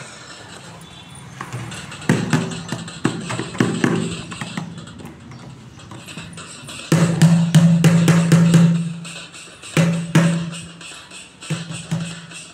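An upturned plastic bucket drummed with a plastic mug: scattered hollow hits, then a fast roll of beats about seven seconds in, and another short burst a few seconds later.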